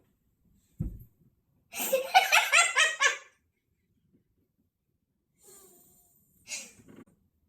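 A person laughing hard in a quick run of rapid bursts for about a second and a half, starting about two seconds in, after a short low thump; faint breaths follow near the end.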